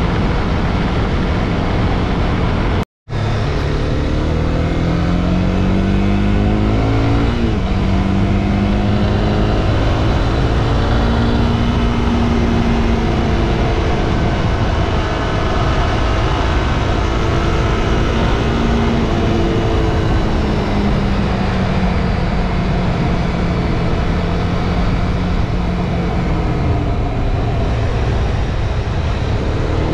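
Honda CB300R single-cylinder engine under way, heard over strong wind rush. Its pitch climbs as it accelerates, drops at a gear change about seven seconds in, then holds and slowly eases down. The sound cuts out for a moment about three seconds in.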